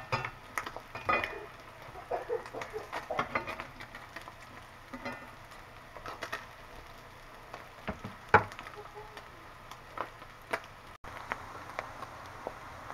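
Slices of SPAM sizzling in oil in a cast-iron skillet, with a metal spatula clicking and scraping against the pan as the slices are moved and turned; one sharp clack about eight seconds in. After a cut near the end, the frying goes on as a steady sizzle.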